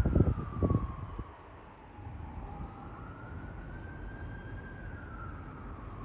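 Emergency-vehicle siren wailing, its pitch slowly falling and rising again about once every five seconds, over a steady low rumble. Wind buffets the microphone during the first second.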